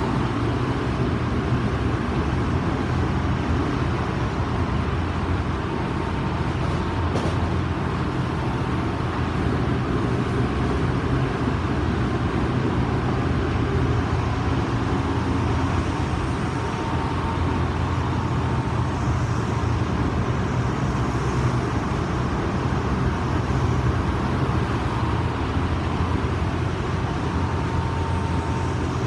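Odakyu 2000 series electric train car DeHa 2003 running steadily between stations: an even, low rolling rumble, with a faint thin whine coming in now and then in the later part.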